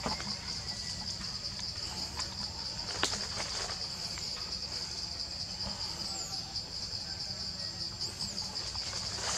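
Insects droning steadily in a high, even buzz, with a sharp click about three seconds in.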